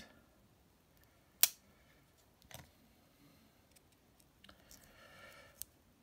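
Wenger Swiss Army knife blades snapping on their springs: one sharp snap about a second and a half in, a lighter click a second later, then a few faint ticks and a soft rustle near the end as the main blade is shut and the nail file opened.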